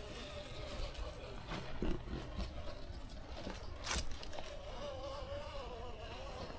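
Small electric motor and gearbox of an RC rock crawler whining faintly, the pitch wavering up and down with the throttle, over low wind rumble on the microphone, with a sharp click or knock about four seconds in.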